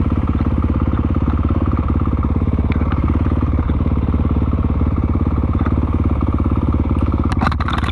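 Dirt bike engine running at a steady, even speed, its firing pulses rapid and unchanging. A few sharp clicks or knocks sound near the end.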